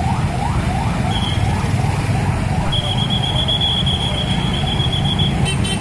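A vehicle siren on a fast yelp, rising sweeps about three a second that fade away in the first half, over the low rumble of idling engines in stalled traffic. A steady high squeal holds for a couple of seconds near the middle.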